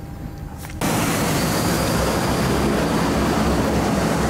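Steady noise of aircraft engines running on an airport apron, with a faint high whine; it cuts in suddenly about a second in, after a low aircraft cabin hum.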